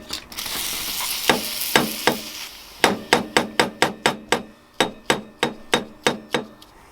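Hammer tapping on a seized carburettor to free it: quick light metal strikes, about four a second, each ringing briefly. For the first couple of seconds a steady hiss sits under a few slower taps.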